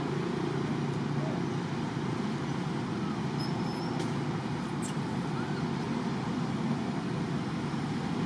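Steady low background rumble, even and unchanging, with a few faint high chirps and two faint clicks about four and five seconds in.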